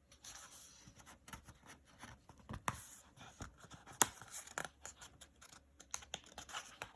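Faint rustling and scraping of paper with a few sharper clicks, as a picture book's pages are handled and turned.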